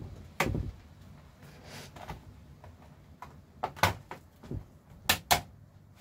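Sharp plastic clicks and knocks from a laptop's bottom case as it is worked free of the palmrest clips and handled. One heavier knock comes about half a second in, then a quick cluster of five or so clicks in the second half.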